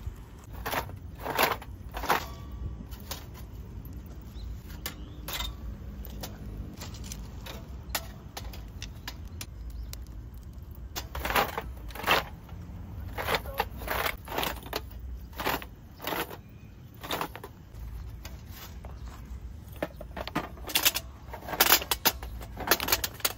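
Hard pieces of binchotan charcoal clinking, knocking and scraping against each other and against metal as they are handled, in irregular clusters of sharp clicks over a steady low rumble.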